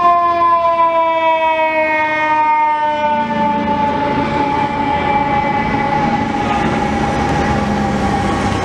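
Fire truck's mechanical siren winding down. One long, loud wail slowly falls in pitch, with heavy diesel apparatus rumbling underneath.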